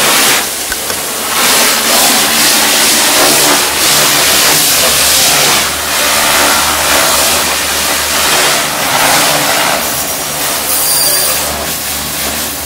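Kärcher electric pressure washer running under load, a steady motor hum with the hiss of its high-pressure water jet spraying a fabric garden parasol.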